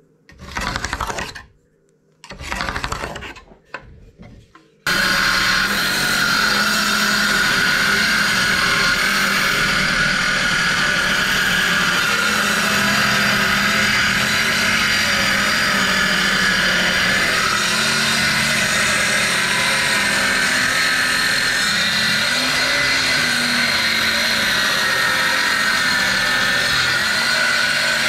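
Power tool working wood: two short bursts, then running steadily from about five seconds in.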